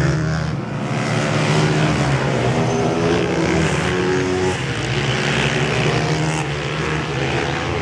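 Several supermotard racing motorcycles' engines running hard together through a corner, their pitches rising and falling as the riders brake, shift and accelerate.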